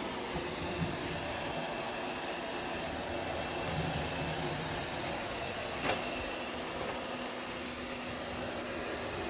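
Kilgone robot vacuum running steadily, a continuous whirring of its suction motor and brushes, with one sharp click a little past the middle.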